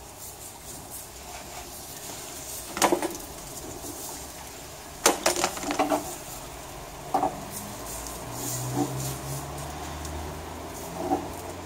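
Flat steel kebab skewers clinking against the metal rim of a charcoal grill as they are turned over the coals: a sharp clink about three seconds in, a quick run of clinks around five to six seconds, and single clinks near seven seconds and near the end. Between them there is a faint hiss with small ticks from the cooking meat and coals.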